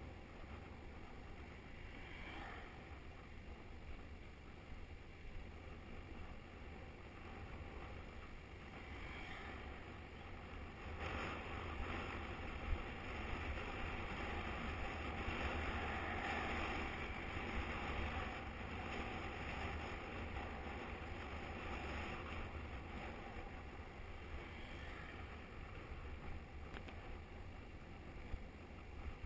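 Wind noise on the microphone of a camera riding on a moving bicycle: a steady low rumble and rush. It grows louder about a third of the way in and eases off again after the middle.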